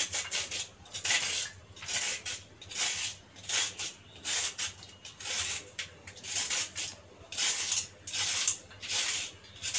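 Kitchen knife scraping the ridged skin off a bitter gourd (karela), in short scraping strokes about twice a second.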